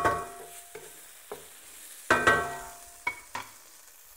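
Wooden spatula stirring tofu and onions in a stainless steel wok: two ringing knocks against the metal, one at the start and one about two seconds in, and a few lighter taps, over a faint sizzle of frying.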